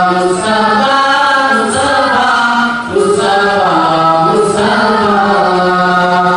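Young male voices singing a naat, an Urdu devotional poem, unaccompanied and amplified through microphones, in long held, melismatic phrases.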